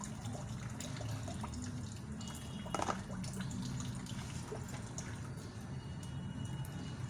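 Water running from a kitchen tap into a sink, with scattered light clicks of dishes being handled and one sharper knock about three seconds in.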